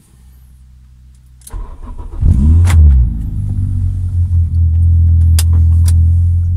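A car engine starts about a second and a half in. It rises and falls in pitch as if blipped, then runs with a loud, steady low rumble, with a few sharp clicks over it.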